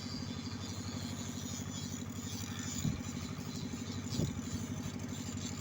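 An engine running steadily with a fast, even putter, and two brief thumps about three and four seconds in.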